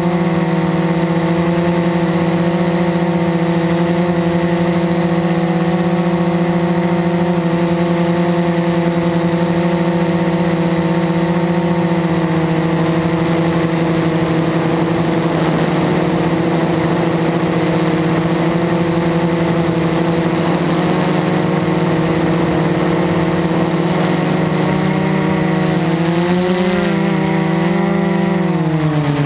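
Quadcopter's electric motors and propellers buzzing at a steady pitch, heard close up from the onboard camera. About three seconds before the end the pitch wavers up, then falls sharply as the throttle changes.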